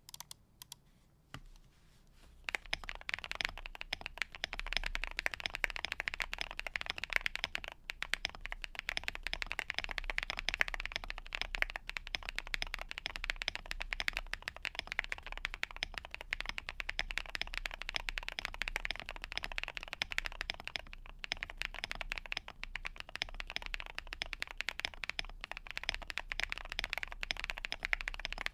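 Typing on a Monsgeek M1 mechanical keyboard with Green Jacket tactile switches and Osumekeys Dusk keycaps: a few separate keystrokes, then fast continuous typing from about two and a half seconds in.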